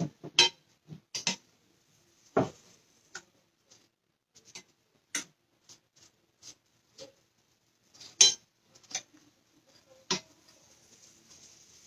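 A metal spoon tapping and scraping against a cast-iron skillet while butter is spread over biscuits, as a run of irregular sharp clinks and clicks. A faint hiss comes in near the end.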